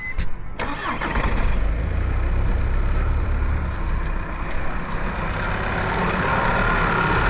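Volkswagen TDI diesel engine starting in deep frost, catching about half a second in and then running at idle. It is struggling to run, as if heavily loaded.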